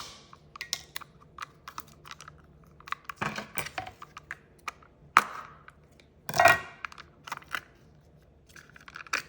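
Scattered small clicks and crinkles, with a few louder rustles, from hands handling an opened tub of store-bought slime and its packaging.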